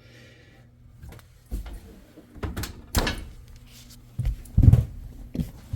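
Scattered knocks, clunks and rubbing from hands working among the metal parts of a gas oven range, with the heaviest thud about four and a half seconds in.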